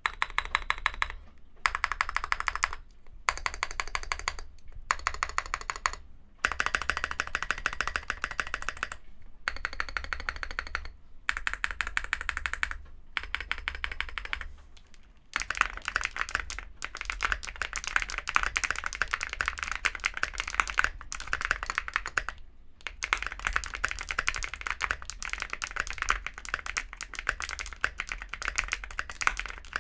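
Typing on an Owlab Mr. Suit tenkeyless mechanical keyboard with KNC Black Jacket tactile switches, an FR4 plate and SA-profile ABS keycaps. Rapid keystrokes come in short bursts with brief pauses, then run on more steadily from about halfway.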